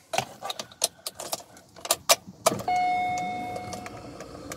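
Several sharp clicks as the ignition key is turned in a BMW E53 X5 and its electrics switch on. About two and a half seconds in, a single chime sounds from the instrument cluster and fades away. The car is still locked out by the immobiliser, asking for its emergency code.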